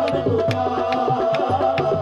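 Qawwali music: tabla strokes keep a quick, steady beat under a held harmonium note.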